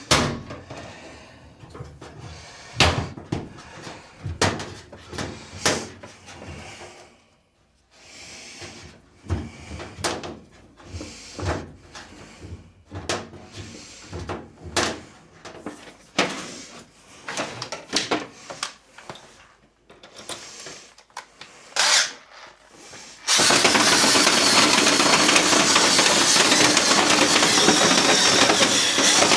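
Clicks and knocks of dryer vent brush rods being handled as another rod section is fitted. About 23 seconds in, a drill starts suddenly and spins the brush inside the vent duct with a loud, steady whir.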